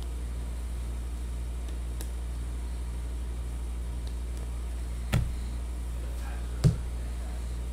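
A stack of basketball trading cards being handled and squared in the hands, giving two sharp knocks about a second and a half apart, over a steady low hum.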